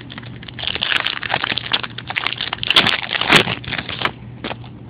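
Foil wrapper of a baseball-card pack crinkling and tearing as it is opened: a dense crackle that starts about half a second in and stops at about four seconds, followed by a couple of light clicks.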